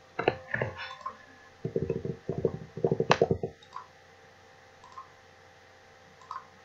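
Computer mouse clicks: a few sharp clicks near the start, then a quick run of rapid clicking from about two seconds in to past the three-second mark, and a couple of faint ticks later.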